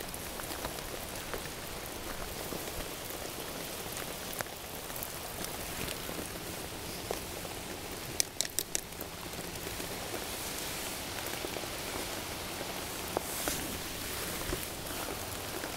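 Steady pouring rain falling, with scattered drops tapping close by and a quick run of four or five clicks a little past halfway.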